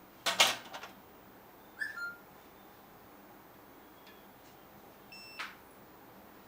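A short loud noisy burst near the start, two brief falling tones about two seconds in, then a single short electronic beep about five seconds in as the dental LED curing light is switched on to cure the composite filling.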